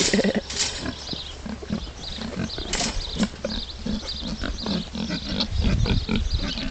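Three young pigs grunting, a quick, continuous run of short grunts.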